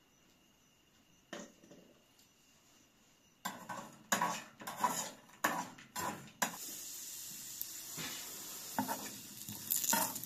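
A spoon clattering and scraping in a small pan of raisins on a gas burner, a run of sharp knocks starting about a third of the way in, then a steady sizzle as the raisins fry, with more scraping strokes over it near the end.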